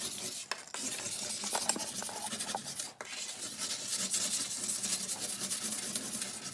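Pumie pumice scouring stick scraping back and forth in quick strokes on a glass-ceramic cooktop, grinding off burnt-on carbon build-up, with two brief breaks.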